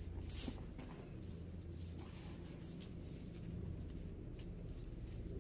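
Metal tire chains for a riding mower jangling and clinking as they are handled and laid out on the ground, in scattered short bursts.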